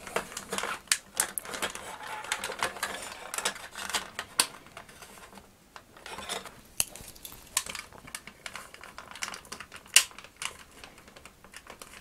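Hard plastic body halves of a vintage Kenner M.A.S.K. Switchblade toy being worked apart by hand: irregular small clicks, taps and rattles of plastic parts, with one louder click about ten seconds in.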